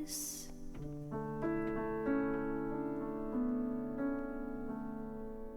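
Music: a sung word ends at the very start, then piano plays slow, held chords in an instrumental break of a gentle worship ballad, a new chord roughly every second.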